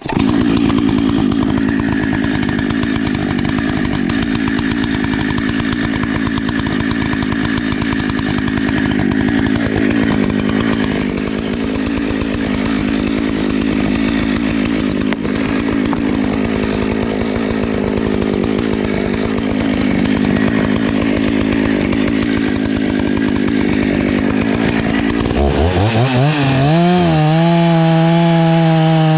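Husqvarna 288XP two-stroke chainsaw running at full throttle while cutting wood in a tree felling. About 25 seconds in, the engine note rises sharply and then holds a high, steady whine with a couple of brief dips.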